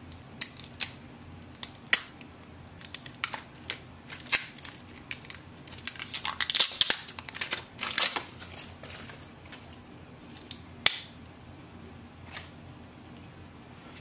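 Plastic wrapping of an ink cartridge being pulled off and crinkled, with many quick sharp clicks and snaps that are thickest in the middle, and one lone sharp click late on.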